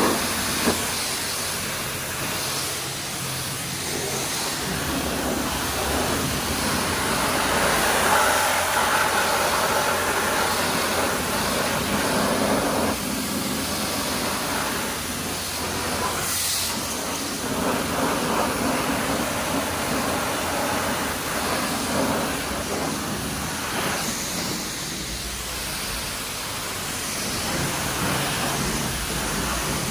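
High-pressure water spray from a self-serve car wash wand hitting a car's bodywork: a steady hiss that swells and eases as the jet moves over the panels.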